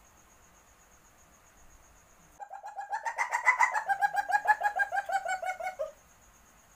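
Asian palm civet in heat giving its mating call: a rapid chattering run of short, pitched notes, about eight or nine a second, starting about two and a half seconds in and lasting some three and a half seconds. The notes rise slightly in pitch at first and sag toward the end.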